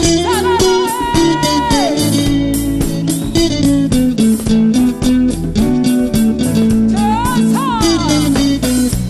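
Live band music: electric guitar and bass guitar over a steady drum beat. A lead melody holds long notes and slides down off them, once about two seconds in and again near the end.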